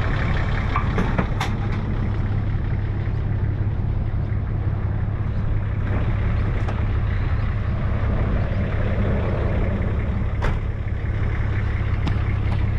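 A vehicle engine idling steadily, a low even hum, with a few faint clicks over it.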